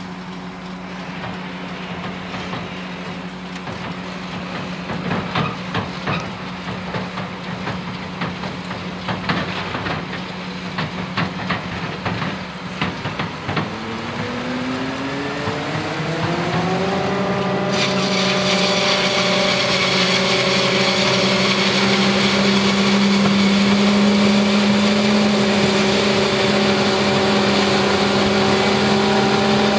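Diesel engines running steadily, a tipper truck's and a New Holland FR9060 forage harvester's, with scattered clicks and knocks in the first half. About halfway through, an engine revs up, its pitch rising over a few seconds. It then holds a steady loud note under the hiss of chopped corn blowing from the harvester's spout into the trailer.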